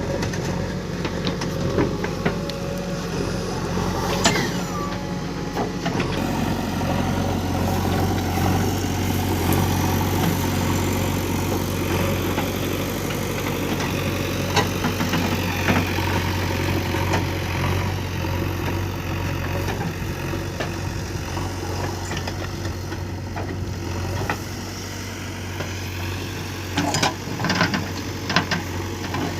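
JCB 3DX backhoe loader's diesel engine running steadily, with scattered sharp knocks and a short cluster of them near the end.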